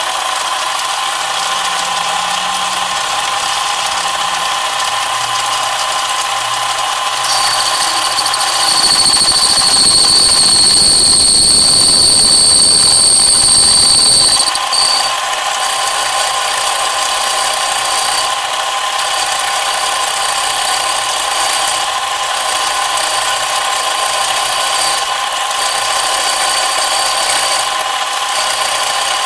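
Electric power tool running with a steady motor whine. From about seven to fifteen seconds in it cuts into the metal part with a louder grinding noise and a high squeal, then runs on more lightly.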